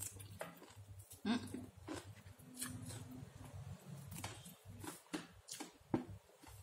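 Close-up eating sounds of a person chewing a napa cabbage pancake: irregular wet mouth clicks and smacks, one louder about a second in and a sharp one near the end.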